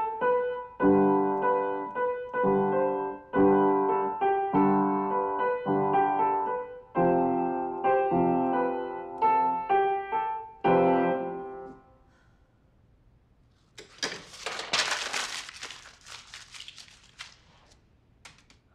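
Piano chords played on a Nord Stage 3 stage keyboard, a new chord struck about every second, stopping a little past the middle. A couple of seconds later comes a short burst of crinkling.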